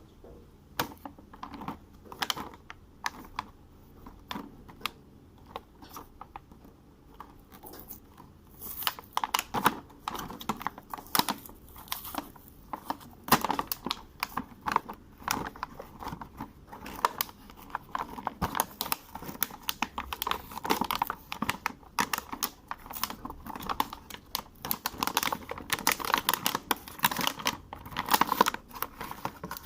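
Toy packaging being unwrapped by hand: plastic crinkling and tearing, with a steady run of small clicks and rustles that gets busier about eight seconds in.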